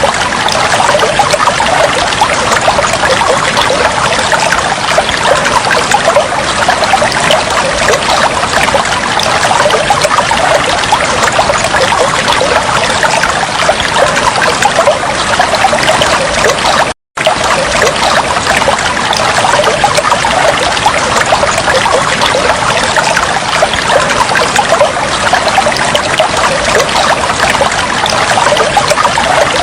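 Steady trickling, bubbling flow of water, unbroken except for a momentary cut to silence a little past halfway.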